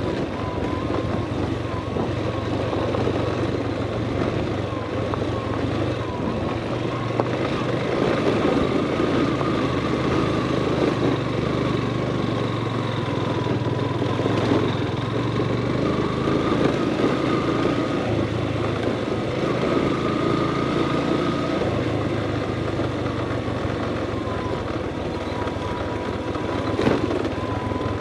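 Motorcycle engine running steadily at low speed over a rough dirt track, its pitch wavering up and down with the throttle. A single knock near the end.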